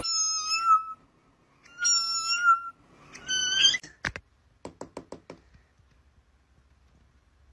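A cat giving three high, squeaky meows, each under a second long. A sharp click follows, then a quick run of faint ticks.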